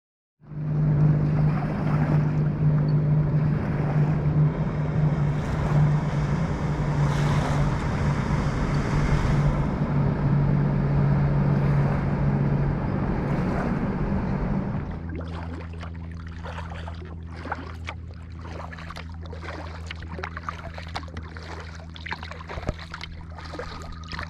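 A boat's motor runs with a steady hum over rushing water and wind noise. About two-thirds of the way through, the hum drops to a quieter, lower note and short splashes and knocks come through.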